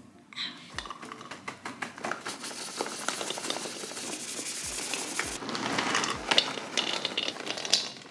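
Dry cat food kibble pouring from a plastic bag into pet bowls: a dense, continuous rattle of small pieces mixed with bag crinkling.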